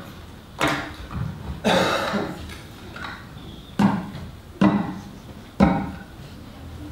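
Pens knocking and scraping on a tabletop as table percussion: a handful of sharp, irregularly spaced knocks, with a longer scratchy scrape about two seconds in.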